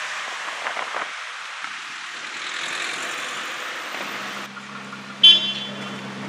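Street traffic: a car passing with an even hiss of engine and road noise, then a low steady engine hum. One brief, loud horn toot sounds a little after five seconds in.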